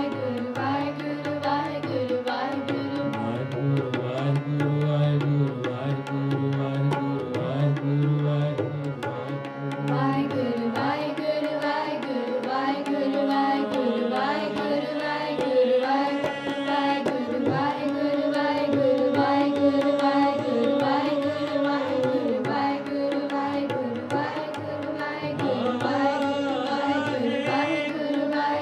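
Sikh kirtan: hymn singing to harmonium, with tabla playing a steady accompaniment.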